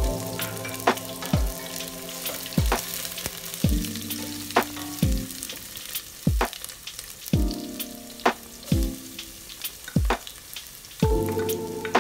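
Chopped red onions sizzling and crackling in hot oil in a stainless steel pot. Underneath runs background music with a deep kick drum about every second and a half and sustained chords.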